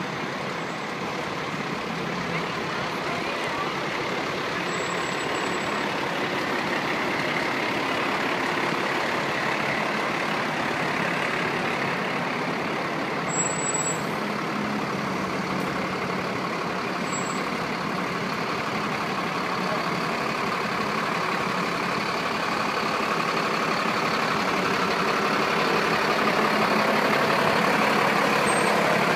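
Fire trucks' diesel engines running as the trucks roll slowly past in a line, getting louder near the end as one passes close.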